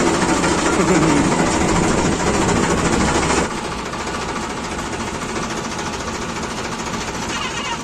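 Diesel tractor engine running with a fast, even chatter. About three and a half seconds in it cuts to a quieter, steady engine and machinery drone.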